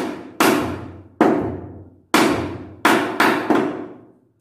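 Hammer blows on the wooden ceiling framing overhead: six sharp strikes at an uneven pace, the last three quicker together, each ringing out in the bare concrete room, then the hammering stops.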